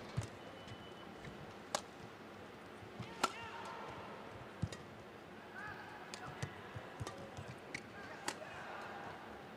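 Badminton rally: a series of sharp racket strikes on the shuttlecock, about one every second or so with the loudest about three seconds in, and brief shoe squeaks on the court, over a steady hum of arena crowd noise.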